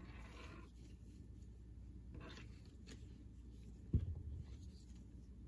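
Faint handling of knitting: soft rustling and light scraping of yarn and thin circular needles, with one low thump about four seconds in.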